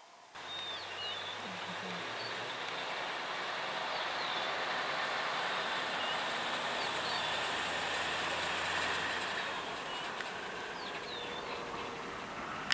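A vehicle's engine running steadily under a broad rushing noise, its low hum dropping away about three quarters of the way through. Birds chirp now and then.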